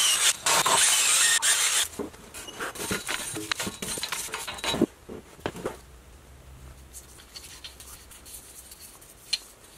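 Makita cordless drill spinning a wire wheel against a rusty wheel hub, a harsh steady scraping that stops about two seconds in. Light scratching and rubbing follow as anti-seize is brushed onto the hub.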